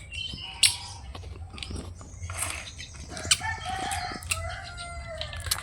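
Chickens clucking, with a rooster crowing about three and a half seconds in, over scattered sharp clicks and taps.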